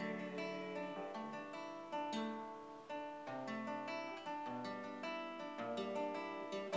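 Solo acoustic guitar playing an instrumental interlude: sustained plucked chords, with a few sharper strums about two and three seconds in.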